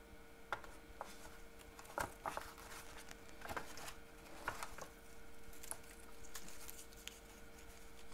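Faint rustling and light taps of paper and ribbon being handled, as a ribbon is pressed onto a folded paper lantern. Scattered short clicks come at irregular intervals.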